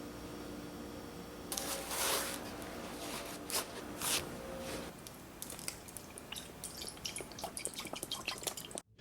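Kitchen food-preparation handling sounds: a few loud rustling swishes, then a run of small crackling clicks, over a steady low hum.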